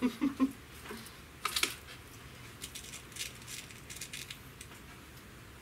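A Beeman R7 breakbarrel air rifle being cocked, with a sharp click about a second and a half in. This is followed by light clicks and rattles of pellets in a small metal tin as a pellet is picked out to load.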